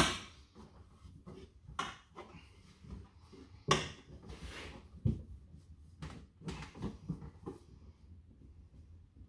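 Irregular knocks, taps and rustles of hands working a sheet of foil-backed sound-deadening mat into a car door's inner cavity and pressing it against the sheet metal. The sharpest knock comes right at the start, with a few more spread through.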